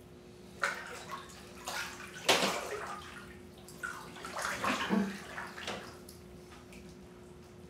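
Bathwater splashing as a person moves about in a full bathtub, in several short bursts, the loudest about two and a half seconds in.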